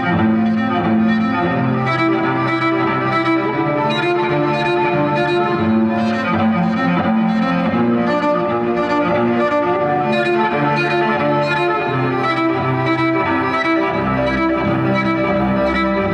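Cello bowed in long sustained notes over a dense, layered bed of held tones, with a faint, even pulse about twice a second.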